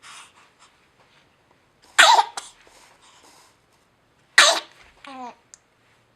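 Two sharp sneezes about two and a half seconds apart, followed by a brief voiced sound.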